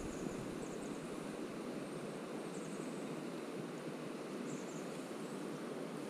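Steady rushing of river water, an even noise with no distinct events. A few faint high chirps sit over it, about every two seconds.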